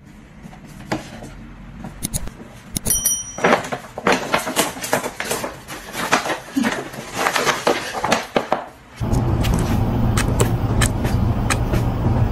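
Paper shopping bag rustling and crinkling as it is handled on a floor around a small dog, with a brief high ring near the start. About three-quarters through it changes abruptly to a steady low hum with quick light taps of a laptop keyboard being typed on.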